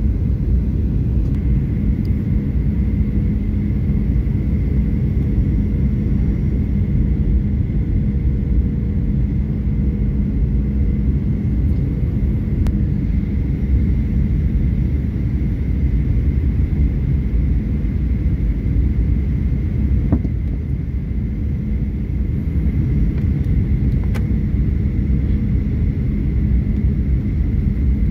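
Steady airliner cabin noise during the descent to land: a deep rumble of engines and airflow with a faint steady hum and a higher whine over it, easing slightly about twenty seconds in.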